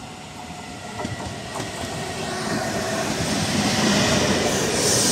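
Trenitalia TAF double-deck electric multiple unit approaching and running past the platform. Its wheel and rail noise grows steadily louder until the cars roll by close up near the end.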